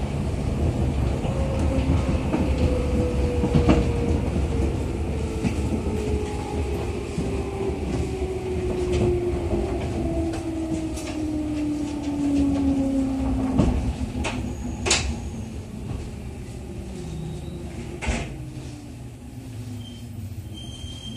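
Running noise inside a JR 211 series electric train's motor car as it slows: the traction motor and gear whine falls steadily in pitch, with sharp clicks from the wheels and rail joints. The rumble grows quieter over the last several seconds as the train brakes for a station.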